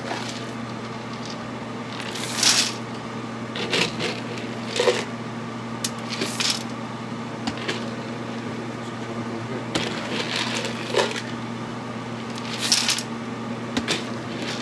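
Wood and charcoal pellets rattling and shifting in a pellet smoker's hopper as they are stirred together by hand, in several short rustles. Under them runs the steady low hum of the switched-on smoker, its auger running.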